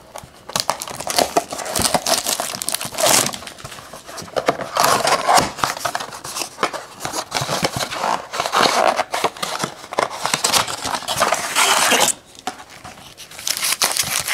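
A cardboard trading-card blaster box being torn open, with the foil-wrapped card packs inside crinkling as they are pulled out and handled. Irregular rustling and tearing, easing off about twelve seconds in.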